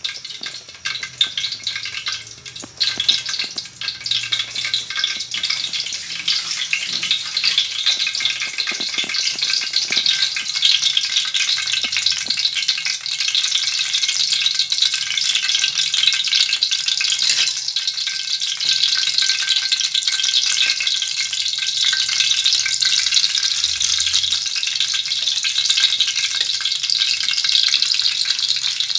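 Hot oil sizzling steadily in a wok, with raw minced-meat patties frying in it. The first few seconds are more uneven, with a few knocks.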